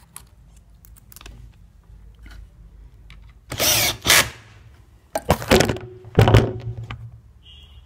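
Cordless drill-driver driving wood screws through metal corner brackets into a chair's wooden frame: three short bursts of driving in the second half, with a few light clicks of handling before them.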